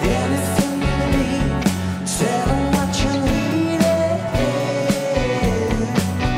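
Live rock band playing a song, with regular drum strokes under a sung melody that holds long notes.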